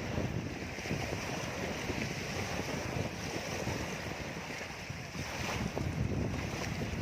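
Strong wind buffeting the microphone over the steady wash of choppy waves on a reservoir.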